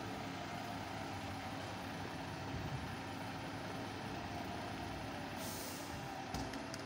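Volvo GBA fire engine's diesel engine running steadily, with a short hiss of air from the air brakes about five and a half seconds in.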